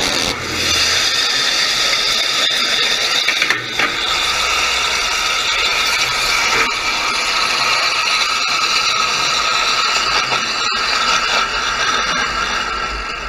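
Nitro-fuelled amateur rocket engine firing on a test stand: a loud, steady hissing roar with high whistling tones, beginning to die away near the end.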